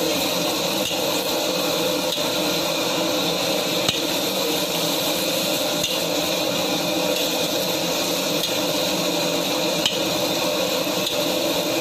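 Fern leaves being stir-fried in a large aluminium wok, tossed with a spatula and by hand over a steady hiss, with a few sharp clinks of the spatula against the wok.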